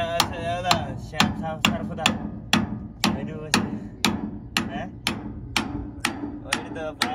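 Hammer blows on a flat steel bar held against a rusted bracket on a combine harvester's splined shaft, knocking the part loose: steady metal-on-metal strikes, about two a second.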